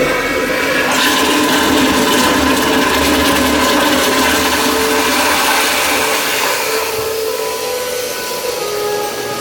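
Toilet flushing: a loud rush of water that eases off after about six seconds.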